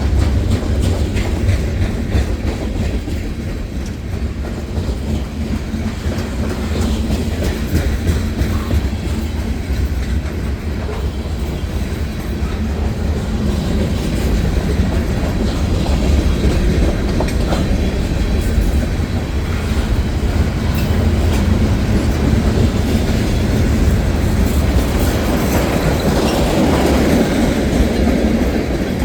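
Freight train cars rolling past at steady speed: a continuous low rumble with the clickety-clack of wheels over the rail joints.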